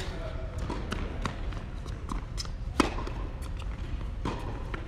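Tennis ball being struck by rackets and bouncing on an indoor hard court during a rally: a few sharp pops, the loudest about three seconds in.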